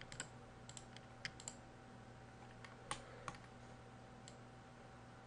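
Scattered light clicks of a computer mouse, about a dozen over four seconds, as frame members are picked and the view is turned, over a faint steady electrical hum.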